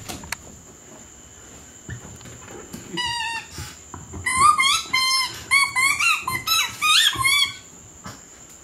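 A fursuiter talking in high-pitched squeaks instead of words: a run of short squeaks that bend up and down in pitch like speech, starting about three seconds in and coming thick and fast for about three seconds.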